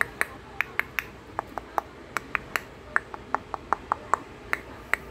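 Budgerigars making a quick, uneven series of short sharp clicks and tiny chirps, about five a second.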